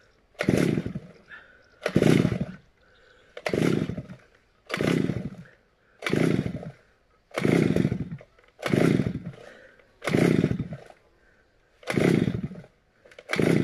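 Petrol lawn mower's small engine being pull-started over and over, about ten pulls roughly one and a half seconds apart, each spinning the engine briefly without it catching: a hard-starting engine.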